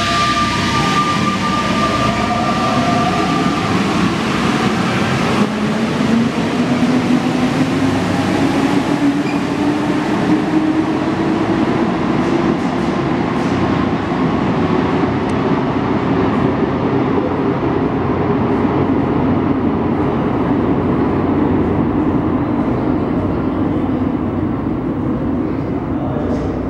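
Alstom NS-93 rubber-tyred metro train pulling out of the station and accelerating into the tunnel: a steady rumble of the running gear under a whine that rises in pitch as it picks up speed, then holds. The hiss at the top fades after about twelve seconds as the train goes into the tunnel.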